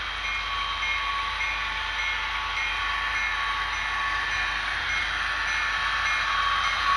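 HO scale model freight locomotive approaching under power, its sound decoder playing engine sound with a bell dinging about twice a second, growing louder as the train nears.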